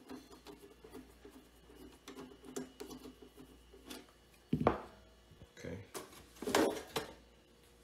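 Hands working the metal case of a Dell OptiPlex 3020 desktop to get its side panel off. A faint quick ticking as a screwdriver works at the back of the case gives way to one sharp knock about halfway through, then a short run of scraping, clattering knocks near the end.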